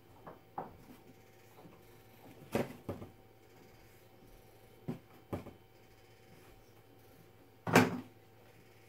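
Handling noises at a workbench: a series of separate knocks and clicks as a two-part epoxy and its packaging are picked up, opened and set down. The loudest, near the end, is a brief clatter. A faint steady hum runs underneath.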